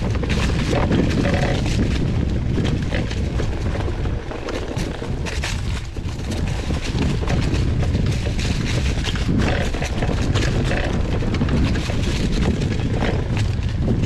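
Wind rushing over a GoPro's microphone as a mountain bike rides a dirt trail, with a steady stream of rattles and knocks from the bike over the rough ground.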